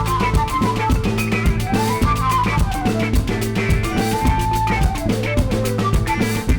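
Background music with a steady drum-kit beat, guitar and bass.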